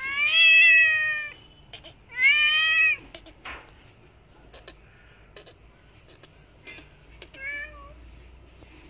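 Domestic cat meowing: two loud, drawn-out meows in the first three seconds, then a shorter, quieter meow near the end.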